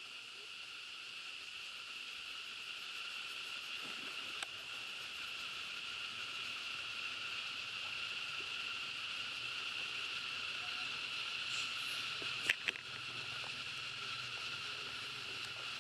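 Insects droning steadily in a high pitch, slowly growing a little louder, with a couple of sharp clicks about twelve seconds in.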